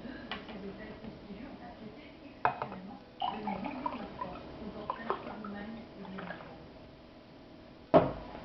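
Faint voices talking, with a sharp knock about two and a half seconds in and a louder knock near the end.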